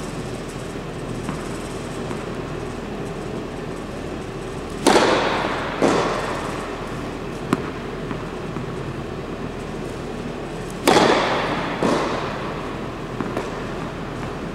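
Two tennis serves, each a sharp crack of racket strings on the ball followed about a second later by a softer knock, echoing in an enclosed court. A steady background noise runs underneath.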